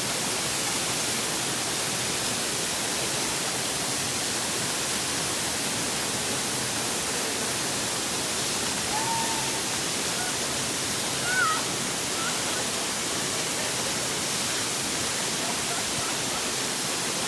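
Waterfall rushing with a steady, even roar. Two brief faint calls sound near the middle.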